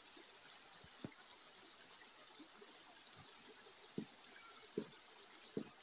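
Steady high-pitched insect chorus drone, with a few soft low knocks about a second apart from around one second in.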